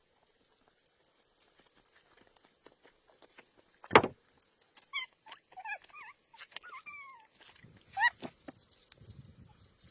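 A few short, high-pitched whimpering calls from an animal that bend up and down in pitch, between a sharp knock about four seconds in and another about eight seconds in. A fast, even, very high ticking runs underneath.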